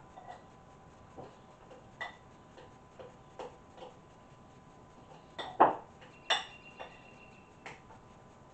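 Metal spoon clinking and scraping against a glass mixing bowl while stirring herbs into softened butter: irregular taps, the loudest two between five and a half and six and a half seconds in, one with a short ring.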